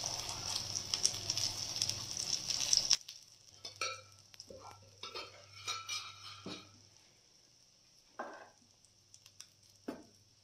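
Ghee sizzling on a hot iron tawa under a stuffed paratha while a spatula spreads it over the top. About three seconds in, the sizzle drops suddenly to a faint hiss, leaving scattered soft clicks and pops.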